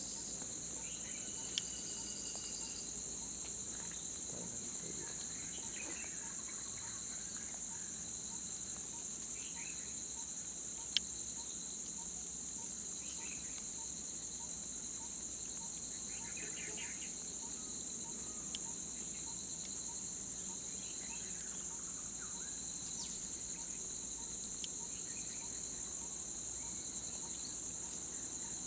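Steady, high-pitched drone of an insect chorus, with scattered short bird chirps over it. Two sharp clicks stand out, the louder one about eleven seconds in.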